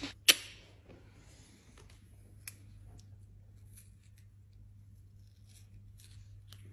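Faint rustles and small clicks of fingers working at a man's ear and the sticky wax around it, with one sharp click just after the start, over a steady low hum.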